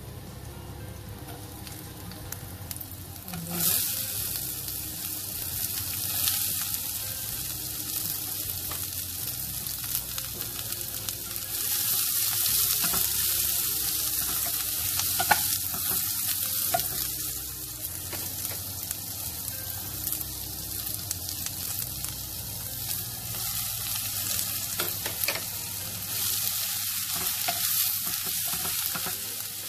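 Sliced aromatics and ginger frying in hot oil in a pan, sizzling steadily while being stirred, with scattered clicks of the utensil against the pan. The sizzle swells sharply about three and a half seconds in.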